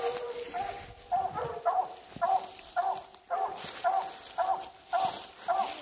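Coonhounds barking steadily at a tree, about two to three barks a second: the tree bark of hounds that have a raccoon treed.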